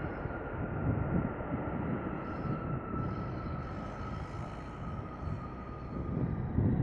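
Turbofan engines of a twin-engine wide-body airliner running at low power while it taxis: a low rumble under a thin, steady whine that slowly sinks in pitch.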